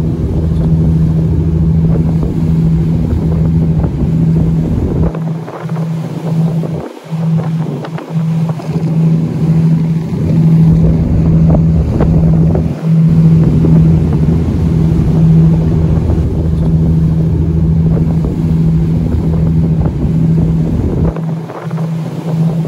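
Tour boat's engine droning steadily as the boat cruises, a constant hum with overtones. Wind rumbles on the microphone and drops away now and then.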